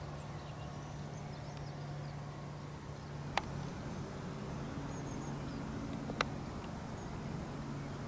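A steady low engine hum, with two sharp clicks a few seconds apart and a few faint high chirps.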